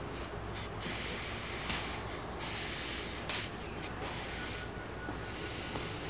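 Wet sponge dabbed against a hot metal spoon mould full of freshly cast pewter, sizzling in several short spurts as the water flashes to steam. The mould is being cooled where the molten pewter tends to leak out.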